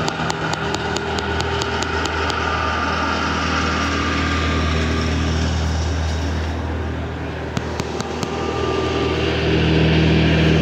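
Vehicle engine idling steadily, with a fast ticking that stops after about two seconds; the engine grows louder near the end.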